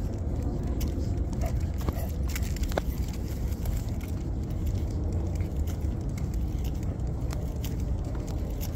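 Steady low rumble of a handheld phone microphone carried along on a dog walk, with small scattered clicks and jingles from the metal leash clip and harness hardware.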